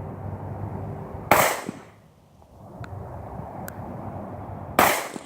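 Two pistol shots from a Springfield XD, about three and a half seconds apart, each a sharp crack with a short echo. Fainter shots can be heard between them.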